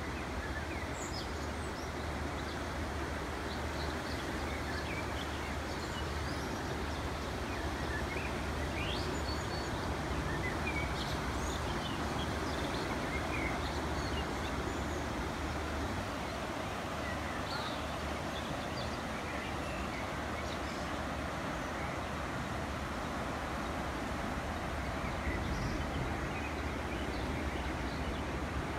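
Steady rushing of the Ahr river in flood, its swollen brown water pouring past over the bank, with scattered birdsong chirps over it.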